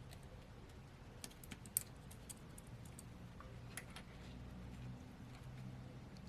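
Light, scattered clicks and taps of a replacement charging-port board being handled and fitted into a Samsung A52 phone, the sharpest a little under two seconds in, over a low steady hum.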